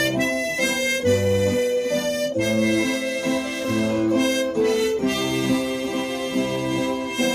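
Harmonica playing a slow melody in held notes over strummed guitar chords and bass notes: an instrumental passage of a song.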